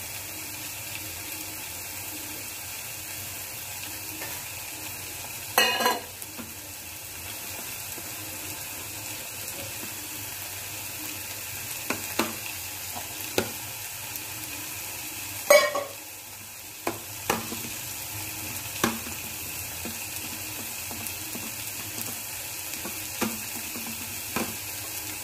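A hand squelching and stirring a flour-and-water paste in a stainless steel bowl over a steady hiss, with several sharp metallic clinks against the bowl, two of them louder.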